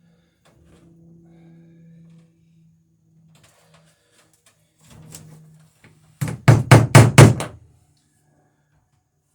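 Hammer driving a rivet through a wooden dory's planking against a backing block: a quick run of about six sharp blows near the end.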